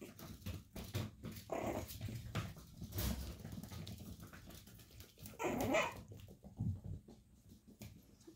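Chihuahua puppies making small cries, two short outbursts about a second and a half and five and a half seconds in, the second the louder, among light clicks and rustling.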